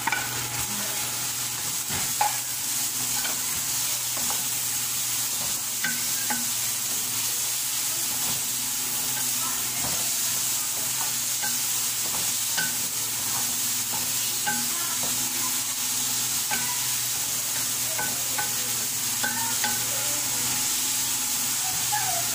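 Raw minced meat, just added to hot oil in a metal kadhai, sizzling steadily as it fries. Scattered light clicks and scrapes come through as it is stirred with a spatula.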